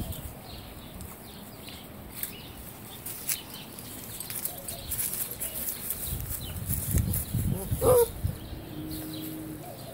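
Two dogs, a Great Dane puppy and a pit bull, scuffling and pawing through grass and dry leaves, with rustling and light footfalls that grow busier in the second half. About 8 s in, one dog gives a short yelp that rises and falls in pitch.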